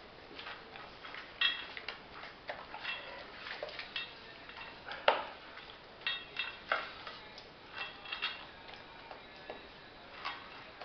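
Dog eating from a stainless steel bowl: irregular clinks and knocks as its muzzle and teeth hit the metal bowl, which rings briefly, with the loudest knock about five seconds in.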